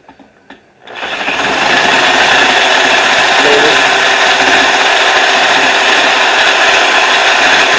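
Heavy drill with a half-inch bit boring out a bolt hole in a clamped bull-bar bracket to widen it. It starts about a second in, builds quickly, then cuts steadily and loudly.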